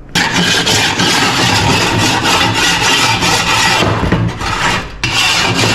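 Angle grinder cutting into a steel motorcycle fender, a harsh grinding noise that starts abruptly, drops out for a moment about four seconds in, then carries on until near the end.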